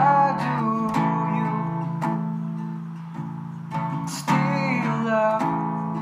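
Acoustic guitar strummed in slow chords, about one stroke a second, under a man's singing voice: one sung phrase at the start and another from about four seconds in.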